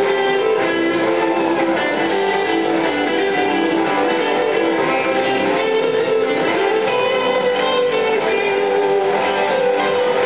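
Live rock band playing: electric guitars carry a sustained, flowing lead melody over drums and the full band, heard at concert volume.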